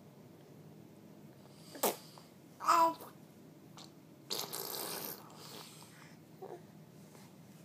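A baby making short vocal sounds: a brief pitched squeal or coo about three seconds in, then a longer breathy, spluttering noise a little later, with small clicks in between.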